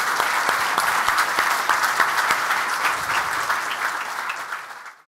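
Audience applauding, many hands clapping, fading near the end and then cutting off.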